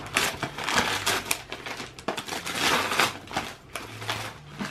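Christmas wrapping paper being torn and crumpled by hand as a present is unwrapped: a run of irregular crackling and rustling.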